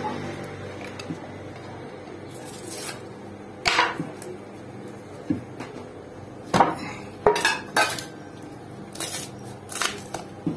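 Butcher's knife clinking and knocking against the wooden block and rib bones while a rack of breast ribs is cut: about half a dozen sharp strikes at uneven intervals, starting a few seconds in.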